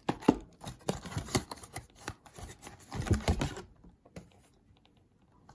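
Trading-card box packaging being handled and opened: a quick run of crinkles, clicks and taps of plastic wrap and cardboard that stops about three and a half seconds in.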